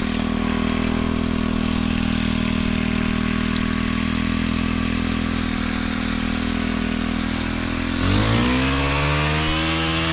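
Gas engine idling steadily, then revving up about eight seconds in, its pitch rising and staying higher.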